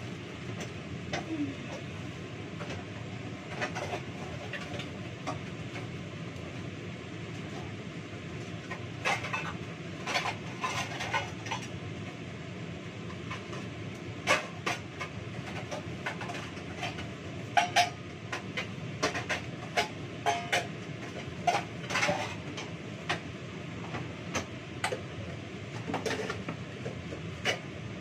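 Steady whooshing hum of a kitchen exhaust fan. From about nine seconds in, scattered clinks and clatters of dishes and utensils being handled sound over it.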